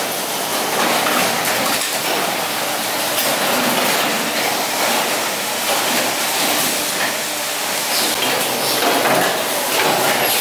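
Factory-floor noise of many small plastic injection-moulding machines for seal tags running together: a steady hiss with clatter and scattered clicks.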